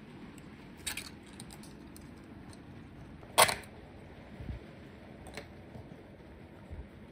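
Plastic cookie-cutter stamps clicking and tapping as they are pressed into pastry dough and handled on the counter: a few sharp clicks, the loudest about three and a half seconds in, with a couple of soft low thumps.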